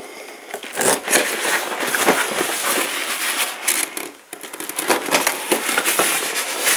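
Packing tape being pulled and torn off a cardboard box: irregular crackling and rustling with scattered clicks, easing off briefly about four seconds in.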